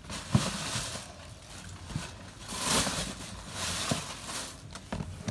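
Rustling of a plastic shopping bag and handling noises as rubber rain boots are taken out and picked up, in a few bursts with some light knocks.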